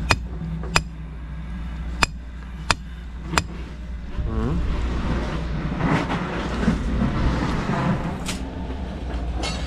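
Hammer blows: five sharp strikes in the first three and a half seconds, spaced about half a second to a second and a half apart, and one more near the end. From about four and a half seconds a passing vehicle's noise swells and fades over a steady low hum.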